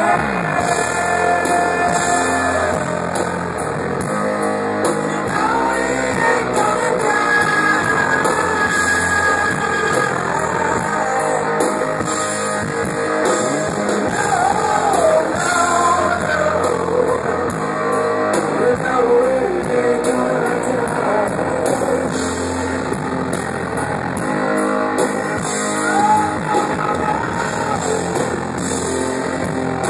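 Live rock band playing loudly: electric guitars, bass and drums under a sung lead vocal.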